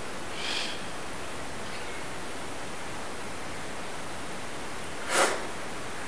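Steady hiss, with two short high-pitched cries coming up from a deep shaft in the floor: a faint one about half a second in and a louder one just after five seconds.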